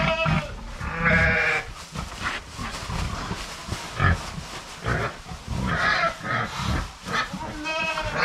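Penned livestock calling: Mangalitsa pigs grunting low, with goats bleating a few times, about a second in and again around six seconds. The pigs are noisy in expectation of food.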